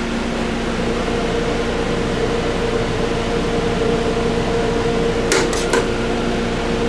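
Steady mechanical hum of a food truck's fans and cooling equipment in a small metal kitchen. About five and a half seconds in come three quick sharp clicks of metal tongs.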